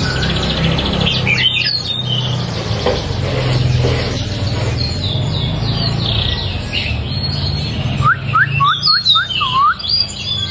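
White-rumped shama singing loud, varied whistled phrases. Near the end it gives a quick run of about six rising whistles.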